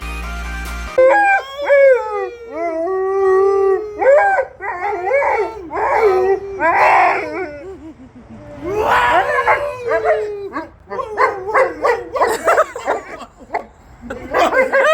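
Wolfdog howling in long, gliding calls that rise and fall, then breaking into shorter, choppier yips and woo-woos over the last few seconds. Music cuts off about a second in.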